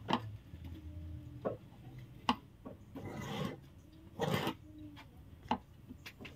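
A pen marking kraft pattern paper along a ruler. Scattered light taps and clicks, with two short scratchy rubs about three and four seconds in.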